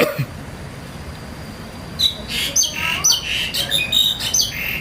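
High-pitched bird chirping: after a quieter first two seconds, a rapid series of short, falling chirps, several a second.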